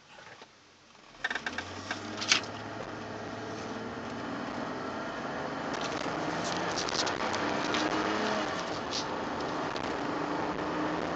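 Mercedes-Benz car accelerating, heard from inside the cabin: engine and road noise start about a second in and grow steadily louder as the car picks up speed. Sharp clicks and rattles come near the start and again in the middle.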